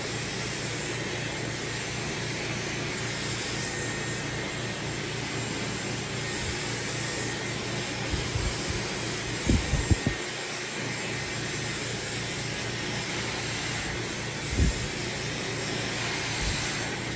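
Dyson hair dryer running steadily, blowing a constant rush of air through the hair being brushed, with a faint high steady whine. A few short low thumps break in around ten seconds and again near fifteen seconds.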